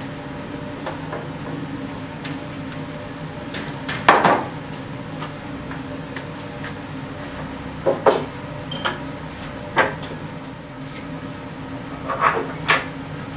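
Wooden knocks and clunks as the timber parts of a new bell wheel are handled and fitted together by hand, the loudest about four seconds in and a pair near the end, over a steady low hum.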